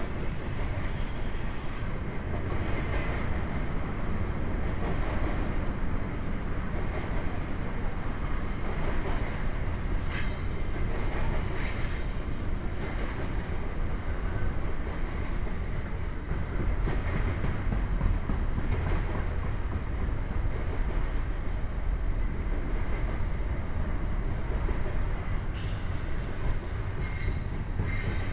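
Double-stack intermodal well cars rolling past close by: a steady rumble of steel wheels on the rails. A high wheel squeal comes in near the end.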